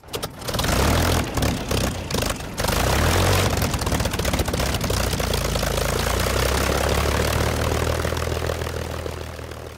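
Propeller aircraft engine droning steadily. It comes in unevenly, with breaks, over the first two or three seconds, and fades out near the end.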